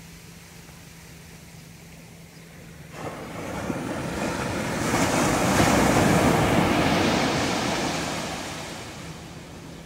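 A small wave breaking on a sandy beach: the surf rushes in about three seconds in, is loudest around the middle, and fades away as the water washes up and settles.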